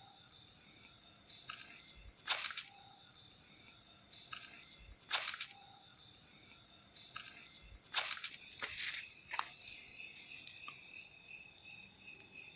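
Continuous high-pitched chorus of night crickets and other insects, with a few sharp crunches underfoot at irregular moments as someone walks.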